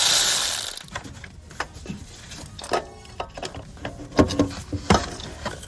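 Hand tools and metal parts clinking and knocking while a car's belt tensioner pulley is worked loose with an Allen key. A loud rushing noise fills the first second or so, then come scattered knocks, the sharpest two about four and five seconds in.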